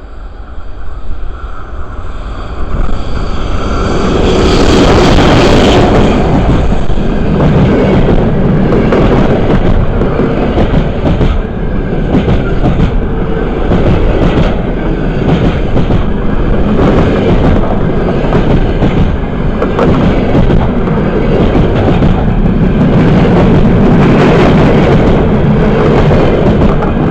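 Passenger train hauled by an EP1 electric locomotive running over the rails: a steady loud rumble with the wheels clacking over rail joints again and again. It builds up over the first few seconds.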